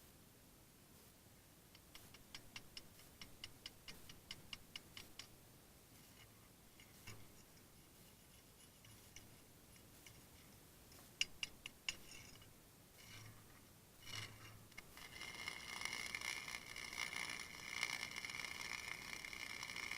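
Forney 125FC flux-core welder: a run of quick sharp ticks, about four a second, then a few scattered pops, then from about three-quarters of the way in a steady crackle of the arc as a bead is run.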